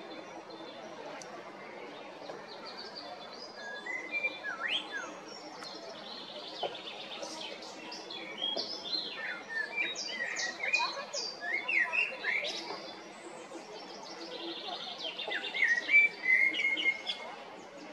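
Male common blackbird singing: three phrases of whistled notes that slide up and down in pitch, mixed with short high squeaky notes, coming about four, nine and fifteen seconds in. A faint steady hum of background noise runs underneath.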